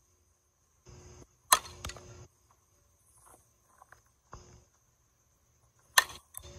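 Softball bat striking a tossed softball twice, sharp cracks about a second and a half in and again near the end, each followed by a lighter knock. Crickets chirp in a steady high drone underneath.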